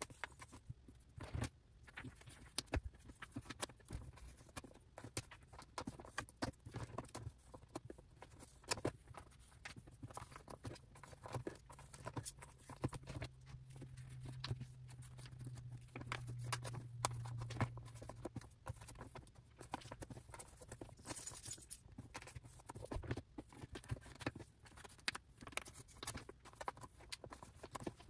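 Photocards in plastic sleeves being handled and slid into the clear pockets of a ring-binder page: scattered light clicks and taps of card and plastic against the page and desk. A brief crinkle of sleeve plastic comes about three quarters of the way in, and a low hum runs for several seconds midway.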